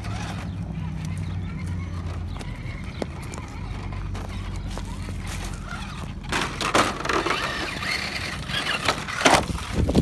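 Axial Deadbolt RC rock crawler's electric motor and gears whining as it is driven over rocks and up onto a log. The whine comes in louder, rising and falling bursts from about six seconds in as the throttle is worked.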